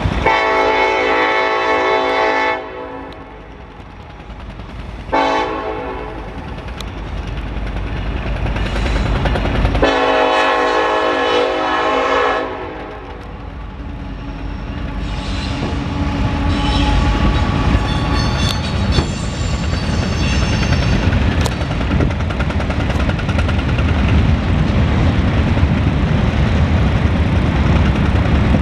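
Norfolk Southern freight locomotive's air horn sounding a long blast, a short blast about five seconds in, and another long blast about ten seconds in. Then the diesel locomotive passes and the freight cars roll by with a steady rumble and rhythmic wheel clatter.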